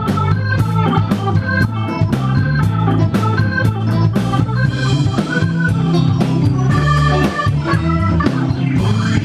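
Live electric blues band playing: electric guitar over a drum kit, with sustained organ-like chords and steady drum hits.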